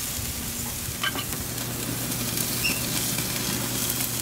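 Thin T-bone steaks sizzling steadily on the grate of a charcoal kettle grill over open flames, with a few faint pops about a second in.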